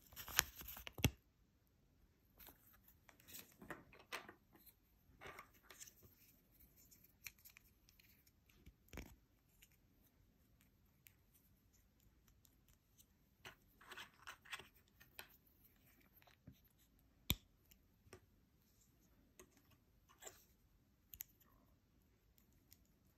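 Quiet, scattered handling sounds of a small plastic Kinder Natoons shark toy being fitted together: faint clicks and rubbing of the plastic pieces, with one sharp click about two-thirds through. The paper instruction leaflet rustles in the first second.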